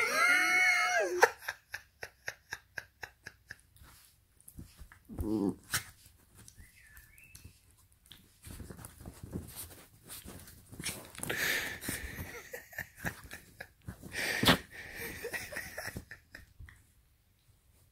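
Dog vocalizing in rough play: a drawn-out pitched cry at the start, then a quick run of huffs about five a second, and a short low growl. After that comes scuffling on bedding with a sharp loud snap or thump a few seconds before the end.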